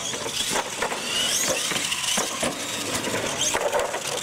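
Radio-controlled monster trucks racing on concrete, their electric motors whining and gliding up and down in pitch as they accelerate. Several sharp knocks come from the trucks bouncing and tumbling on the pavement.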